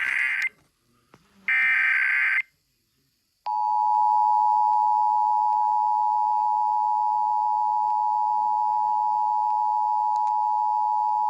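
Emergency Alert System monthly test on FM radio. It opens with the tail of one SAME digital header burst and, about a second later, another full burst, both harsh warbling data tones. After a short gap, about three and a half seconds in, the steady two-tone EAS attention signal begins and holds.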